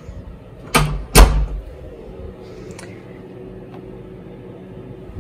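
A door being shut: two sharp knocks close together about a second in, the second a heavier thud as the door closes.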